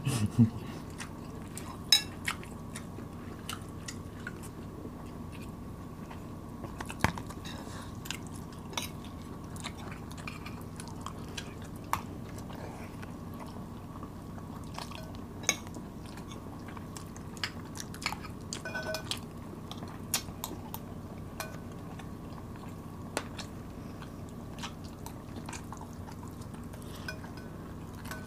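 People eating with metal spoons: chewing, with scattered sharp clicks and clinks of spoons against the dishes, over a faint steady hum.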